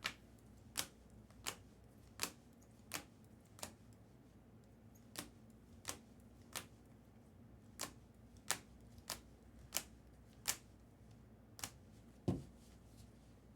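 A run of short, sharp clicks or taps about every half second to a second from trading cards being handled and laid down on a table, with one duller, heavier knock near the end.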